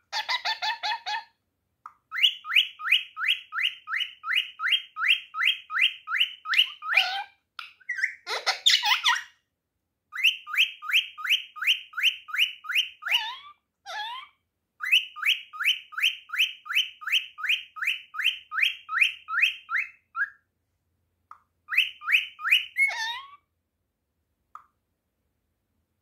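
Pet parrot calling: runs of quick, sharp rising chirps repeated about four times a second, in four bursts of several seconds each, broken by a few louder, harsher calls.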